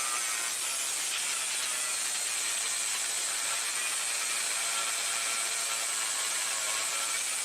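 Power grinder running steadily against the steel of a truck fender, a continuous hiss with a faint wavering motor whine.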